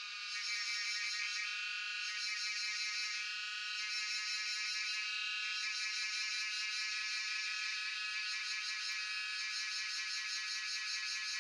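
Cicadas singing in a steady, high-pitched buzz that grows a little louder about half a second in.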